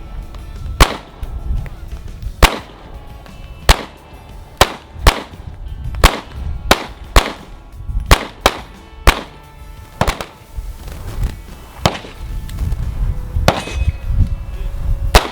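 Pistol shots fired on a shooting range, about fifteen at uneven spacing, each a sharp crack with a short ring after it.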